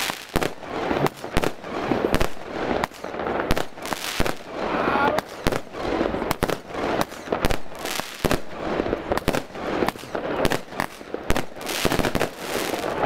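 Fireworks firing a fast, irregular string of bangs and crackling pops, several a second, with hissing between them. The sharpest bangs come near the end.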